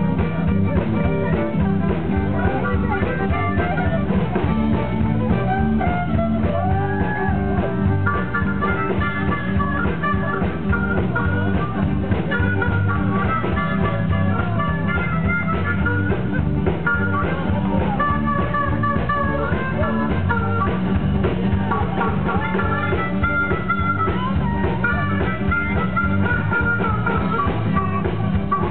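Live band playing on an outdoor stage through the PA, with guitars, continuing without a break.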